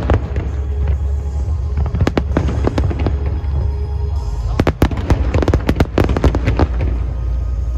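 Fireworks bursting and crackling in rapid volleys of sharp pops, with a dense flurry about five seconds in, over loud music with heavy bass.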